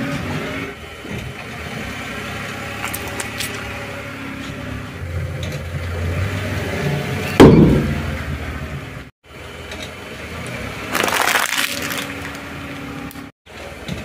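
A car tyre rolls over and crushes small plastic objects, with the car's engine running low underneath. About seven and a half seconds in comes a sudden loud pop, the loudest sound, as a plastic inflatable toy bursts under the tyre. Around eleven seconds there is a short crackling crunch.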